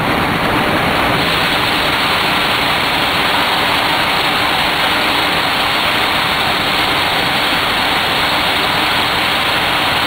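Steady engine and road noise of a truck driving at highway speed, heard from inside the cab.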